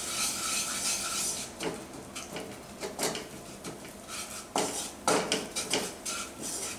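Wooden spatula stirring and scraping a butter, garlic and flour roux around a nonstick pan. It scrapes steadily for the first second or so, then goes in separate strokes and knocks against the pan.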